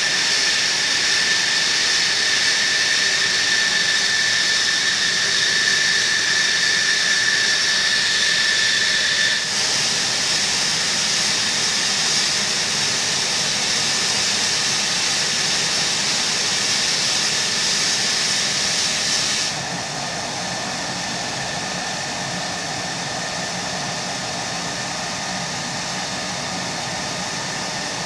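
F-16 fighter jet engines running at idle during hot-pit refuelling: a steady high whine over a loud hiss. The sound drops in two steps, about a third and two-thirds of the way through, and ends as a lower, steadier rumble.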